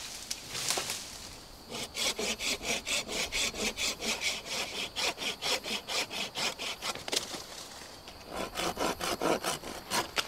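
A blade sawing back and forth through a thin dead wooden log, about four strokes a second, in two runs with a short pause between them.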